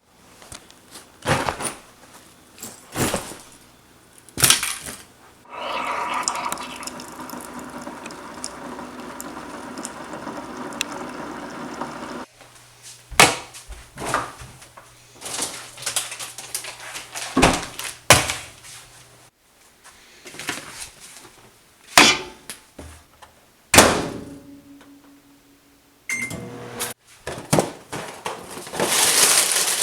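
Gear being handled while a backpack is packed: a string of separate knocks, thunks and clatters of objects being set down and moved. A few seconds in there is a steady rushing noise lasting about six seconds.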